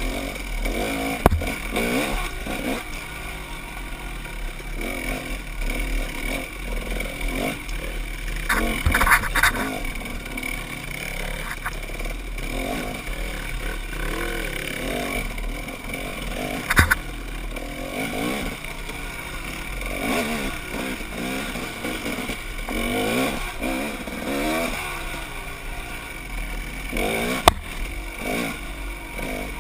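Dirt bike engine revving up and down as it is ridden off-road, the pitch rising and falling constantly. Several sharp knocks cut through, about one, nine, seventeen and twenty-seven seconds in, with a quick rattle of them around nine seconds.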